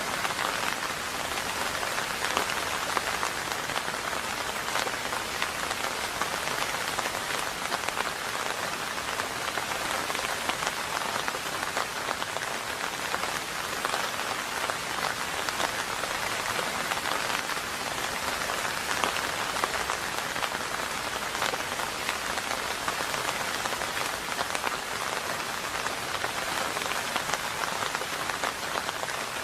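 Steady rain falling, a dense even hiss with many individual drop hits, with no thunder.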